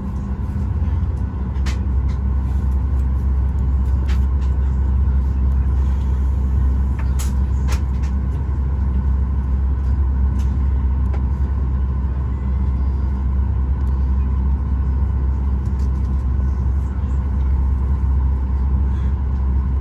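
Steady low rumble of cabin noise inside a Boeing 737 MAX 8 on the ground, its engines and air systems running, with a faint steady hum and a few light clicks.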